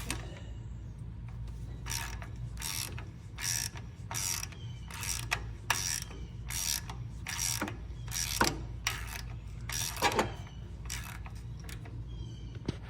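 Hand ratchet wrench clicking in repeated strokes, about two a second, as bolts on a tractor's PTO cover plate are turned out, over a steady low hum.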